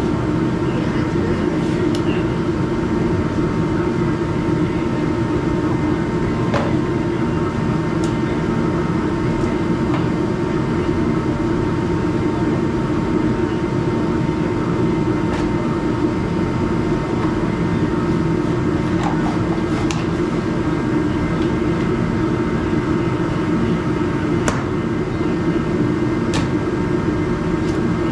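A loud, steady mechanical drone that does not change for the whole stretch, with a few faint clicks and taps over it.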